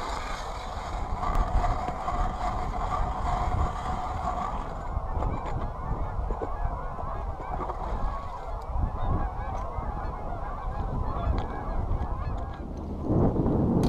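A flock of geese honking, with many calls overlapping.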